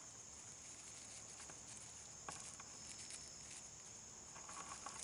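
Crickets or other insects chirring steadily in a high continuous drone, with a few faint rustles and ticks of handling.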